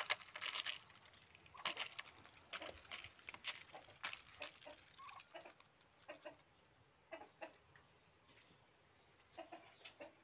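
Muscovy ducks pecking corn kernels from a plastic bowl, their bills clicking and rattling in the grain, with a few soft, quiet calls in between.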